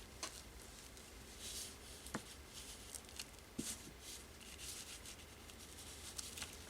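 A block loaded with tea-dye colour being dabbed and rubbed over a paper index card: faint, uneven swishes, with a couple of light taps.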